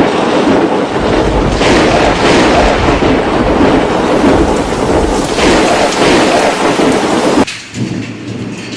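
Heavy downpour of large hailstones, up to ping-pong-ball size, pelting roofs and ground in a loud, dense, unbroken clatter. Near the end it cuts abruptly to a quieter stretch of the same storm.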